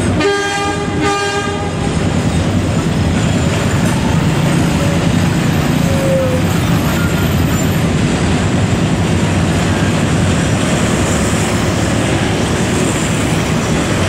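Freight train of loaded hopper wagons rolling past on street-side rails with a steady rumble. In the first two seconds, two short blasts of the hauling CC201 diesel locomotive's air horn sound over it.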